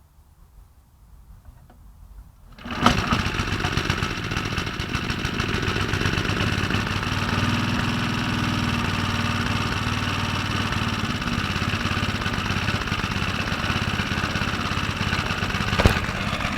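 Qualcast Commodore cylinder mower's small petrol engine starting readily, catching about three seconds in and then running steadily. A single sharp click near the end.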